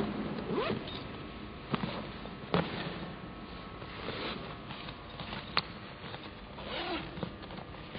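Handling noise from a red nylon rescue bag being turned over and a pocket opened to turn it into a backpack: a few sharp clicks and knocks, the loudest about two and a half seconds in, over a faint rustle.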